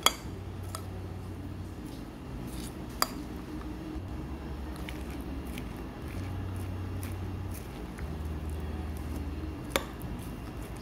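Cutlery clinking against dishes while eating: three sharp clinks, one at the start, one about three seconds in and one near the end, with a few fainter ticks over a steady low hum.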